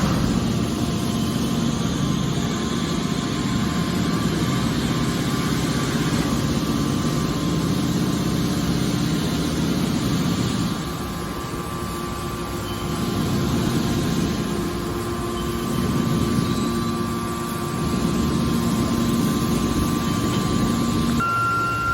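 Copper scrap hydraulic baler running with a steady machine hum, its level dipping twice for a second or two and coming back up as the load changes.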